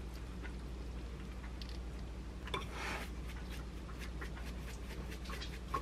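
Light clicks and taps of wooden chopsticks and a wooden spatula against a bowl on a countertop, with a brief rustle about two and a half seconds in and a sharper tap near the end, over a low steady hum.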